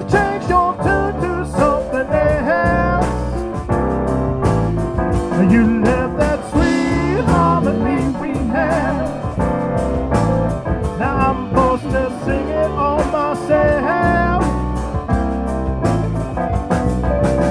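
A band playing a song: a lead singer over keyboard, bass and drums with a steady beat.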